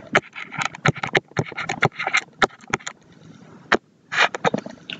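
Stylus tapping and scratching on a tablet screen as a word is handwritten: a quick run of sharp clicks with scratchy strokes between them, pausing briefly about three seconds in before starting again.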